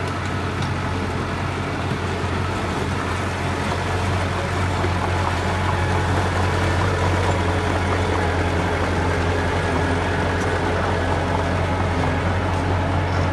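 Heavy diesel engine of earthmoving machinery running steadily, a low drone that gets slightly louder about four seconds in.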